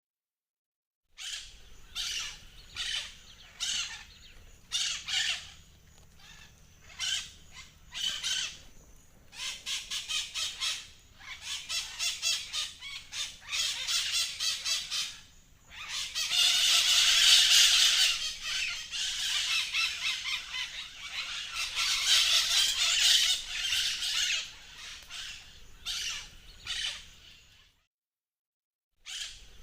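Parrots squawking and chattering: short harsh calls one after another, a run of rapid repeated notes, then a loud, dense stretch of overlapping calls in the middle.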